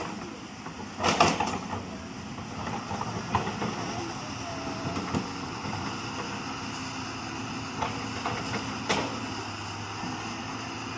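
Excavator's diesel engine running steadily under work, with sharp metallic clanks from the bucket and tracks: a loud one about a second in, smaller knocks around 3 to 5 s and 8 s, and another loud one near 9 s.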